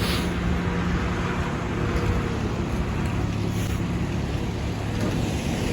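Steady hum of a vehicle's engine with road noise, heard from inside the moving vehicle, the low drone shifting slightly in pitch about two seconds in.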